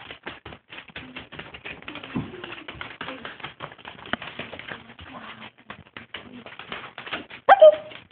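A small dog's claws clicking and scrabbling fast on a hardwood floor as it lunges at someone's feet, with low growls in between and a loud, short yap about seven and a half seconds in.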